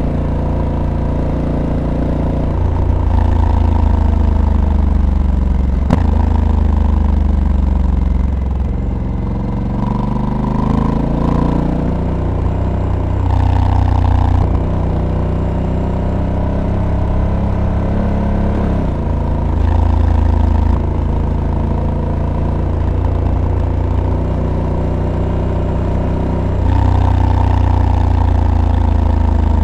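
Honda Africa Twin Adventure Sports DCT's parallel-twin engine under way, its note falling as the bike slows and rising again as it accelerates, with several sudden steps in pitch as the dual-clutch gearbox changes gear. Its loudness jumps up for the last few seconds as the throttle opens.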